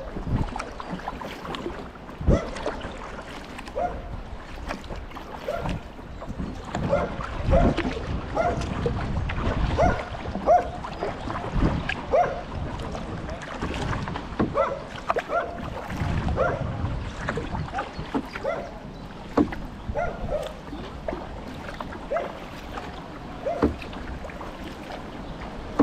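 Canoe paddle strokes: the blade dipping and pulling through the water, with irregular splashes and dripping plinks of water running off it.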